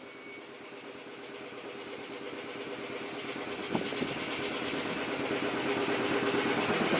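Large electric air compressor running and refilling after a horn blast, a steady motor hum that grows steadily louder, with a couple of light clicks about four seconds in. The last faint ring of the Leslie S5 horn fades out at the very start.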